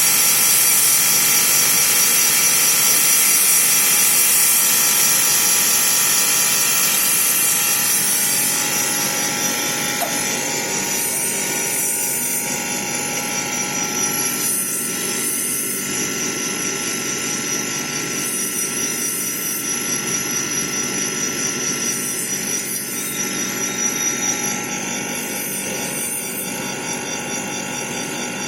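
Automatic lathe running: a steady machine drone made of several steady tones over a high hiss. About a third of the way in, the hiss starts to come and go every second or two.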